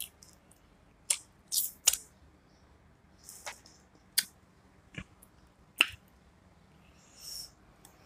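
Close-miked mukbang eating sounds: wet mouth smacks and sharp clicks from chewing and handling seafood boil shrimp, coming as separate snaps at irregular intervals, the loudest in the first two seconds.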